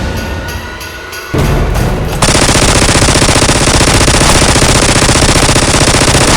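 Rapid automatic gunfire: a long sustained burst of fast, evenly spaced shots that starts about two seconds in, over background music.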